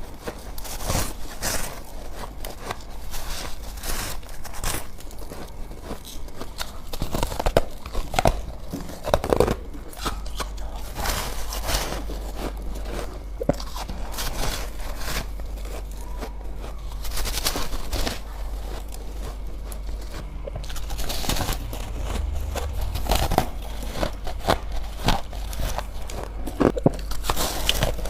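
A person biting and chewing white ice close to the microphone: irregular crisp crunches and cracks, several a second, with pauses between bites.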